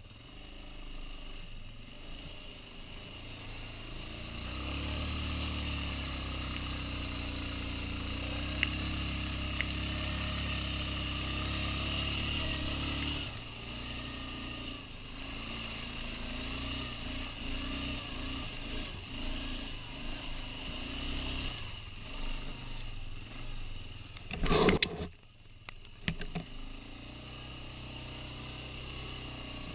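Quad bike (ATV) engine running while being ridden. It holds a steady high note for several seconds, then rises and falls with the throttle. A brief loud noise comes near the end.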